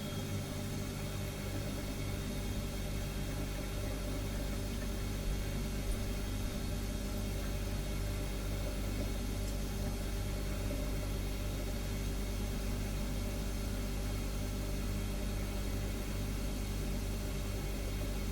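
Refrigerator compressor humming steadily: a low hum with several steady tones layered above it, and a couple of faint ticks about five and six seconds in.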